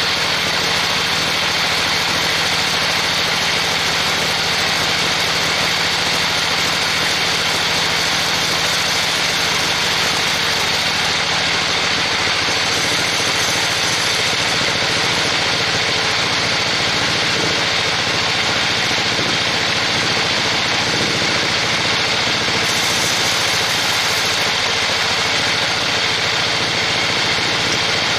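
Band sawmill running steadily, its blade sawing lengthwise through a trembesi (rain tree) log: an even, unbroken sawing noise over the steady hum of the machine.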